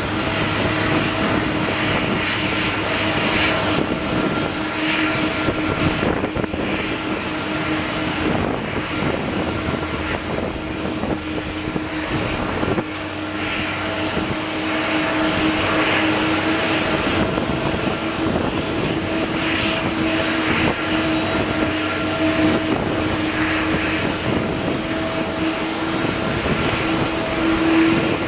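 Boeing 777-200 airliner's jet engines running during pushback, heard as a steady whine over a broad rush of noise.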